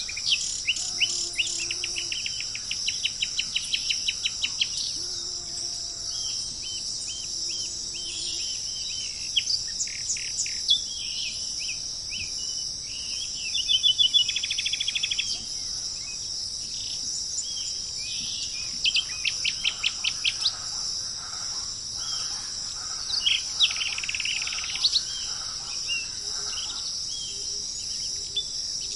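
Songbirds singing in bursts of rapid trills and chirps over a steady, high-pitched insect chorus; a loud fast trill comes about halfway through.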